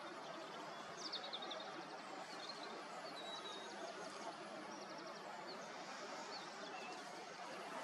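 Faint outdoor ambience, a steady hiss, with small birds giving short high chirps and quick runs of twittering notes at intervals, most clearly about a second in and from about three to six seconds in.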